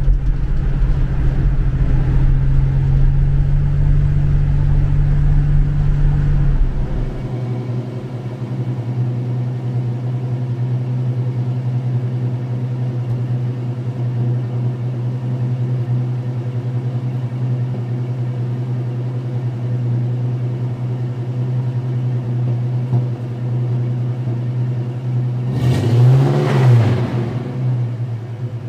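Ford Mustang inline-six with a dual exhaust through Flowmaster-style chamber mufflers. It runs at road speed, heard from inside the cabin, then from about six seconds in it idles steadily, heard close to the open engine bay. Near the end there is one quick blip of the throttle, rising and falling.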